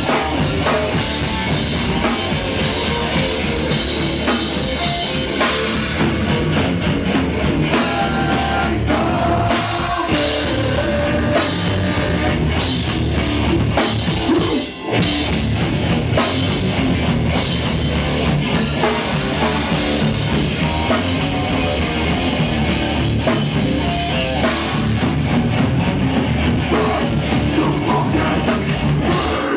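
Hardcore band playing live at full volume: drum kit and distorted guitar in a fast, heavy rock sound, with a momentary break about halfway through.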